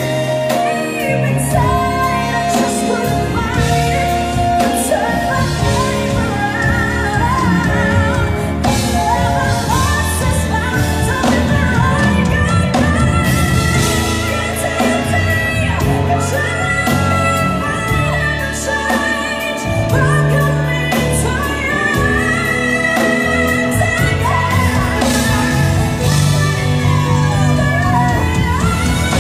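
A woman singing a ballad live, backed by a band with violins, drums and keyboards. Her voice glides up and down through runs and held notes over the steady accompaniment.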